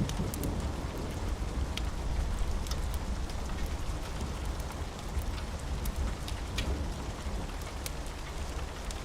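Steady rain, with scattered sharp ticks of drops or crackles throughout and a steady low rumble underneath.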